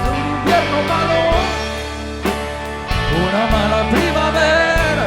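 Live rock band playing an instrumental stretch between sung lines: drum hits over steady bass, with a lead line bending up and down in pitch.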